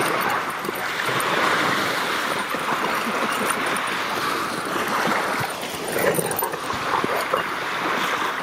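Steady rush of beach surf, with dogs growling and barking in rough play, more noticeably in the last couple of seconds.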